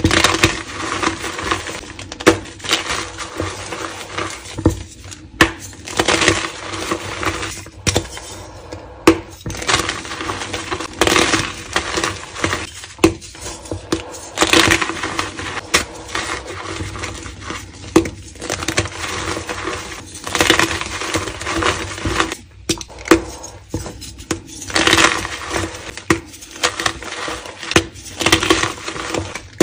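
Dyed gym chalk crushed and crumbled between bare hands: many sharp crunches and snaps, several a second, over a steady gritty crumbling of powder.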